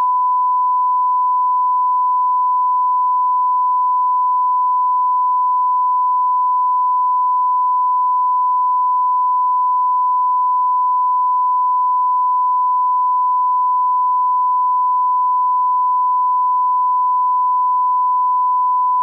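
Line-up reference tone of a bars-and-tone leader: one steady pure tone held unbroken, recorded at −12 dB as a reference for setting audio levels.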